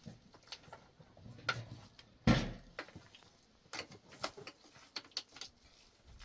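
Scattered knocks and clicks of hard objects being handled, with one louder thud about two seconds in.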